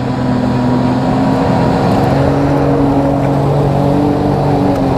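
Off-road 4x4's engine held at high revs under heavy throttle, a steady loud drone as the vehicle digs a rut in the mud.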